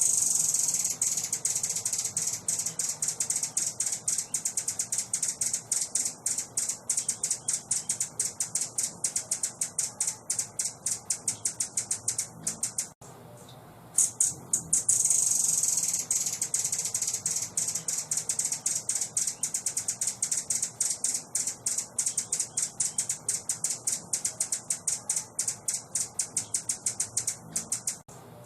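A recorded high-pitched rattling trill, a fast, even run of sharp clicks played as a masteran call for training songbirds. It goes on for about thirteen seconds, stops for about a second, then starts again and runs on.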